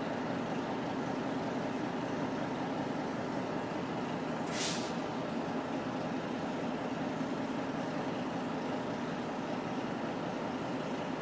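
Two diesel freight locomotives idling steadily, with one short hiss of air from the air brakes about four and a half seconds in.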